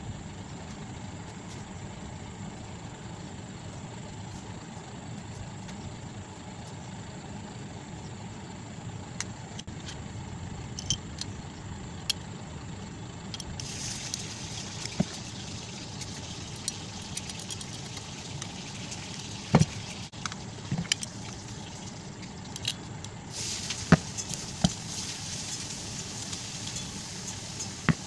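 Small metallic clinks and knocks as a stand fan motor's aluminium end cover and a screw are handled and turned over, with a few sharper knocks in the second half and stretches of light scraping, over a steady low background hum.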